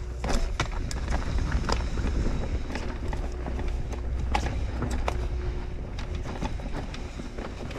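Mountain bike being ridden down a trail: steady wind rumble on the microphone under irregular sharp knocks and rattles as the tyres, chain and frame hit bumps.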